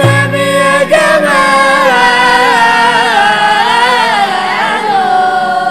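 A mixed group of male and female munshids singing Islamic devotional inshad, holding a long wavering note together a cappella. A single frame-drum stroke sounds right at the start.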